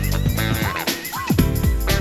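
Background music with a steady beat: upbeat funky electronic track with bass and drums.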